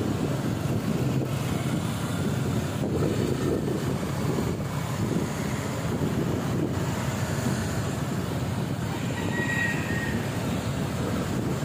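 Steady low rumble of a vehicle in motion, with wind noise on the microphone. A faint brief high tone comes about nine seconds in.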